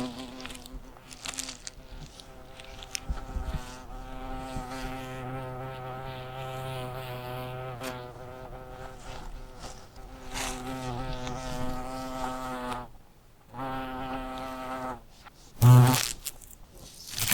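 Carpenter bee buzzing in flight, a steady low buzz that wavers in pitch and loudness, breaking off briefly twice and swelling loudest near the end.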